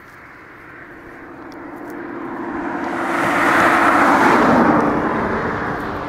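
A car passing by on the road: tyre and engine noise swells to a peak about four seconds in, then fades away.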